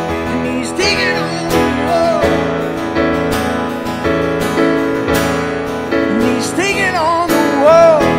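Live band music: an acoustic guitar strummed in a steady rhythm over a stage piano, with a male voice singing a melodic line about a second in and again near the end.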